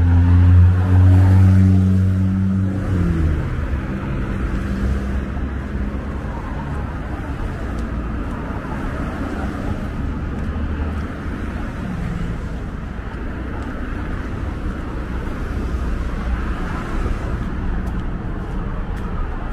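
Road traffic on a city street. A vehicle engine's low hum passes close and drops in pitch about three seconds in, then steady traffic noise continues.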